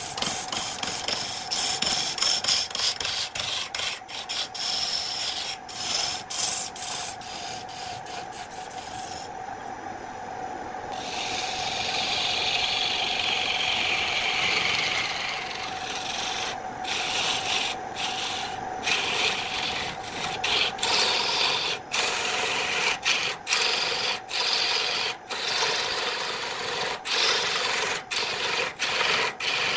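Turning tool shaving a spinning wood blank on a lathe: a scraping, shaving noise in many short strokes over the steady hum of the running lathe. The cutting breaks off briefly about a third of the way in, then runs as one longer smooth cut before going back to short strokes.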